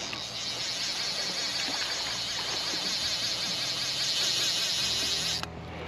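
Steady high-pitched chorus of rainforest insects, cutting off abruptly near the end.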